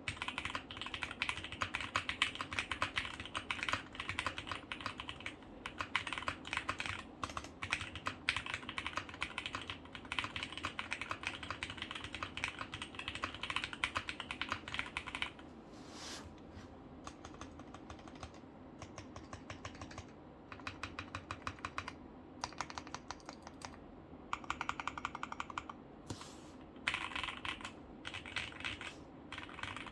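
Typing on a QK65 mechanical keyboard with C3 Tangerine linear switches. Fast, continuous keystrokes for about the first fifteen seconds, then slower, scattered presses broken by a few short quick runs.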